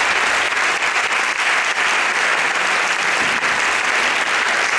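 Audience applauding, a dense, steady clapping with no let-up.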